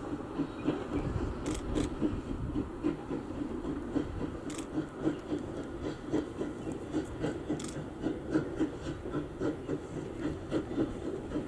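Steam locomotive NM25 hauling a train of carriages, its exhaust chuffing in a steady, even rhythm.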